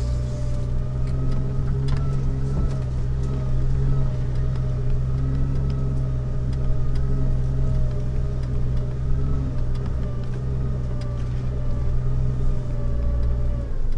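Jeep Wrangler TJ engine running steadily while crawling a wooded off-road trail, a drone that rises and falls slightly in pitch. A few light knocks and clicks are heard over it.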